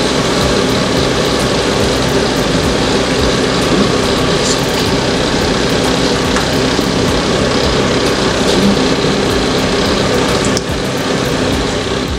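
Puff puff dough balls deep-frying in a pot of hot oil: a steady, dense sizzle and bubbling that eases slightly about ten seconds in.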